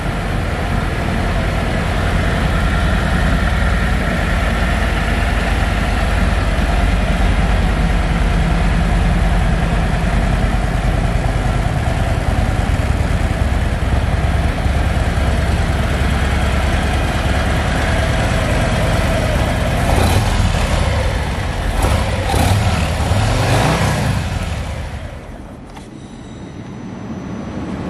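Harley-Davidson Milwaukee-Eight 114 V-twin on a 2022 Street Glide Special idling steadily shortly after a cold start. It is revved a few times near the end, then switched off about 25 seconds in.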